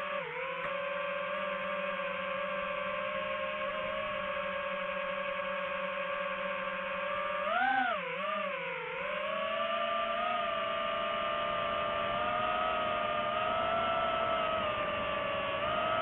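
Quadcopter drone's electric motors and propellers whining steadily. The pitch dips briefly at the start, swoops up and down twice about halfway through, and creeps higher toward the end as the motors speed up.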